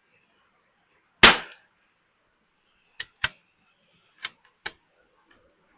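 A single .22 LR rifle shot from a bolt-action Ruger Precision Rimfire, sharp with a short fading tail. About two seconds later come four quieter metallic clicks in two pairs as the bolt is worked to chamber the next round.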